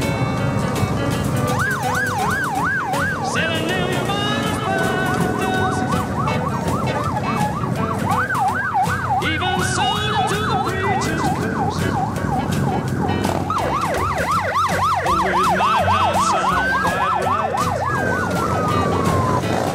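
Sirens yelping in spells of rapid up-and-down wails, faster about two-thirds of the way in, then one slow rise and fall near the end. Short horn blasts sound now and then over the steady rumble of Harley-Davidson motorcycles riding past in a slow procession.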